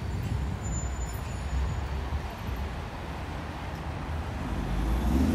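Street traffic: the low rumble of passing road vehicles, growing louder near the end.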